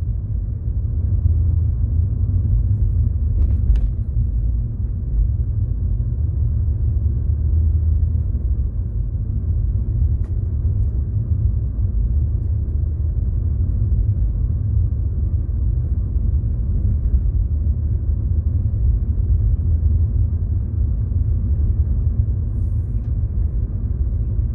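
Steady low rumble of a 2004 Acura TL being driven: engine and road noise, even throughout with no changes.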